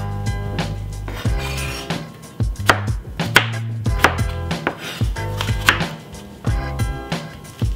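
Chef's knife chopping peeled potatoes on a white plastic cutting board: a string of sharp knocks as the blade strikes the board, irregularly spaced, roughly one a second.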